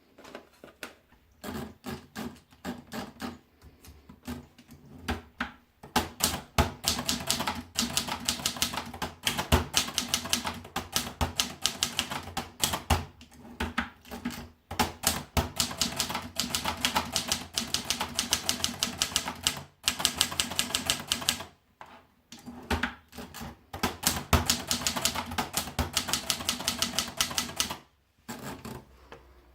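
Adler Tippa S portable manual typewriter being typed on. A few slow, separate keystrokes come first, then fast runs of key strikes with short pauses between them.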